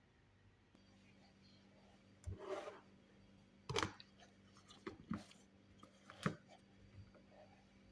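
A handful of soft knocks and clicks of a kitchen blender's jar and lid being handled, the sharpest about four seconds in, over a faint steady hum.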